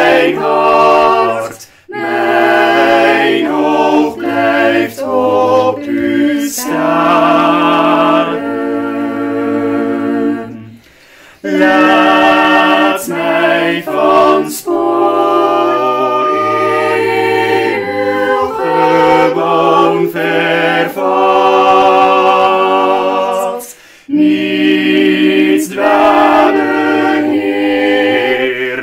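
Small mixed choir singing a Dutch metrical psalm setting a cappella in several parts. The sung phrases break for short breaths about 2, 11 and 24 seconds in.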